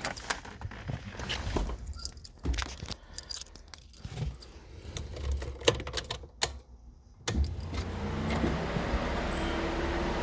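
Keys rattling and the ignition switch and push button clicking. About seven seconds in, the 1998 Jeep Cherokee XJ's engine starts through the hot-wired push-to-start bypass and settles into a steady run.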